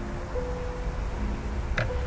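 Background music of slow, long-held chords and sustained notes, with a short sharp tick near the end.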